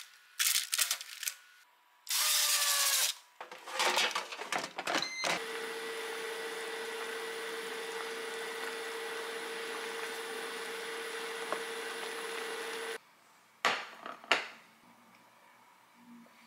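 Chopstick clicks on an air fryer basket and a loud scraping slide with a falling squeak. Then the air fryer's fan runs with a steady hum for about eight seconds and cuts off suddenly, followed by two light clicks.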